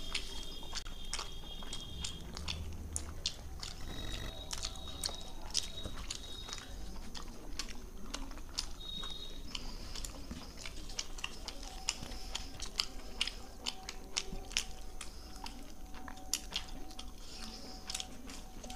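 Two people eating roti and palak paneer with their hands: chewing, with many small clicks of mouth and fingers, and soft tearing of the flatbread.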